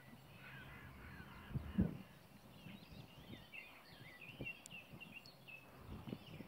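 Birds chirping faintly in the background, with low thuds on the microphone, the strongest about two seconds in.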